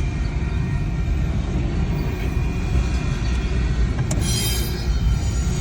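Train cars rolling past with a steady low rumble, with a brief high-pitched wheel squeal about four seconds in.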